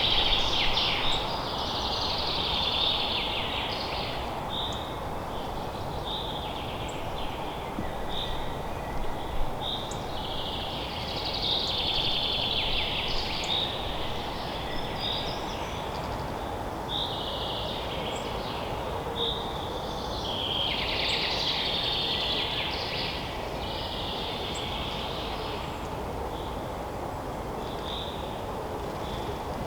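Forest ambience of songbirds singing: several long, busy song phrases, the first and loudest right at the start and others about ten, seventeen and twenty seconds in, with short single high notes repeated about once a second between them. A steady background rush runs underneath.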